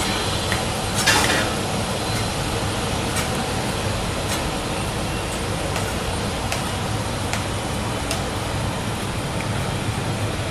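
Kobelco SK200 crawler excavator's diesel engine running steadily while it digs with its bucket, with a few short knocks and a brief louder burst of noise about a second in.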